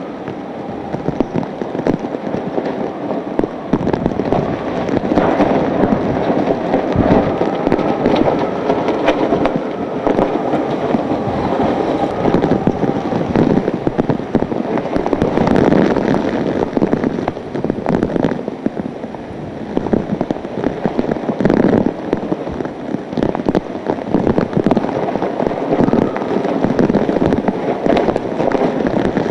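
Hurricane-force wind and driving rain, the gusts buffeting the microphone with constant crackling and swelling and easing every few seconds.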